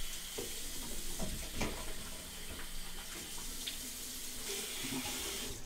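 Bathroom sink tap running, water hissing steadily into the basin with a few short splashes, then cutting off suddenly near the end.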